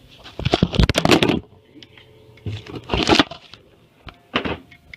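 Flux-core wire welder arc crackling and spitting in three short bursts, the first and longest about a second.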